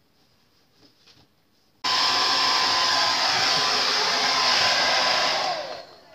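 Hair dryer switched on about two seconds in and blowing steadily, then switched off near the end, its whine falling as the fan spins down.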